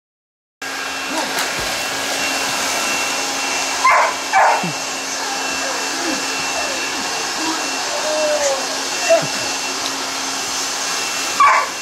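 A steady motor hum with a swimming dog's short whines and yelps over it, and a few louder bursts about four seconds in and near the end.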